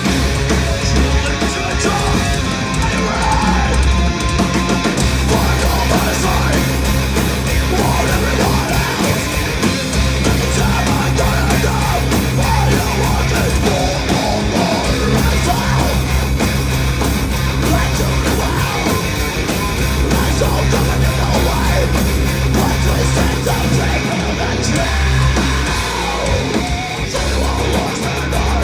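Heavy metal band playing live: electric guitars, bass and drums, loud and dense with no breaks.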